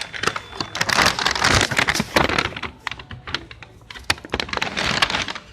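Handling noise: a quick, irregular run of clicks, knocks and rustles as packaged fireworks are picked up and moved around.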